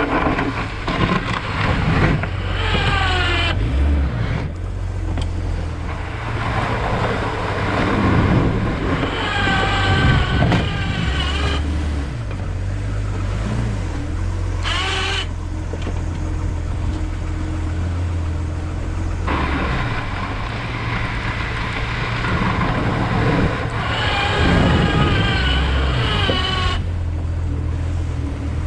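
Jeep Wrangler TJ plowing through icy snow: the engine runs steadily under the rush and scrape of the plow. Three times a high, wavering whine rises over it for a few seconds.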